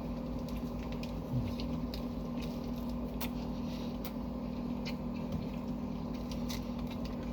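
Someone eating a sub sandwich: soft chewing and scattered small mouth clicks over a steady low room hum.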